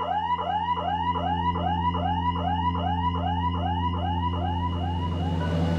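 Electronic drone of several steady low tones, with a siren-like warbling tone above it that sweeps up and down about four times a second. The warble fades out near the end while the drone carries on.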